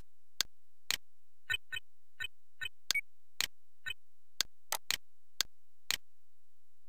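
A quick, irregular run of about fourteen short, sharp clicks from clicking through an interactive course's on-screen buttons and quiz answers. The clicks stop about six seconds in.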